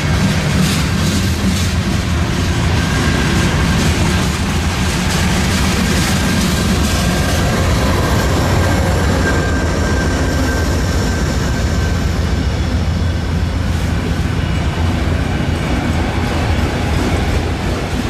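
Freight train rolling past close by: a steady low rumble of steel wheels on rail, with clickety-clack of trucks over rail joints. A mid-train distributed-power GE diesel locomotive passes about halfway through, and a faint high steady whine sounds through the middle.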